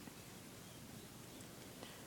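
Near silence: faint room tone, with one small click near the end.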